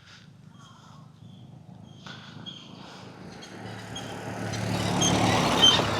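A road vehicle passing close by: its engine and tyre noise grow steadily louder and peak near the end.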